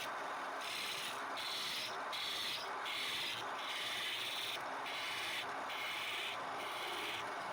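Wood being sanded or abraded by hand in a steady run of back-and-forth strokes, roughly one a second, each a short scratchy rasp.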